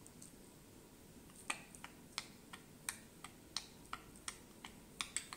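Quick, even ticking like a clock, about three sharp ticks a second, starting about a second and a half in, with some ticks louder than others.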